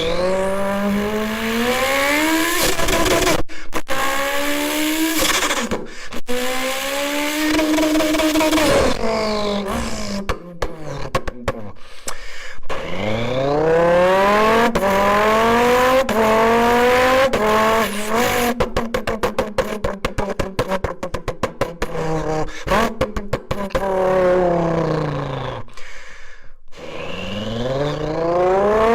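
A person imitating a supercar engine with their voice: repeated rising revs that break off and start again low, like gear changes, with a stretch of fast clicking rattle in the middle.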